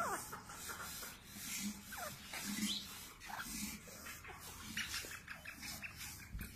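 Black francolin giving soft, short calls, each a quick falling note, about one a second, with faint low notes between them.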